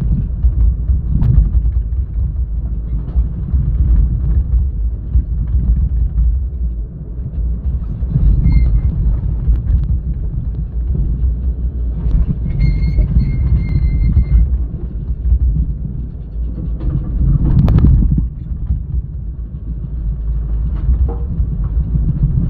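Heavy diesel engine of an excavator working a dump truck load, a steady loud rumble. A high whine comes in briefly about a third of the way in and again for about two seconds just past the middle. A single sharp clank sounds about three quarters of the way through.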